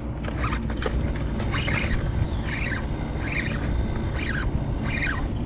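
Birds calling in a series of about five short squawks that drop in pitch, under a second apart, over a steady low rumble.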